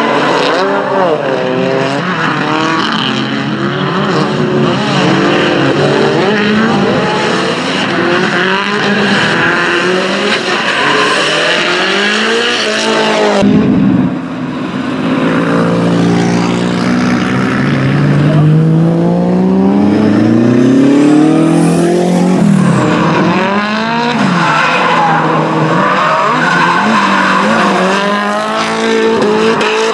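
Drift cars' engines revving hard up and down with tires skidding and squealing on asphalt, several cars running together. About halfway through the sound cuts abruptly, then one engine note climbs steadily for several seconds before falling away.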